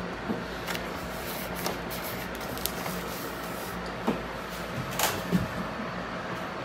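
Handling noise: scattered light clicks and knocks, about seven in all, the clearest about five seconds in, over a steady low hum.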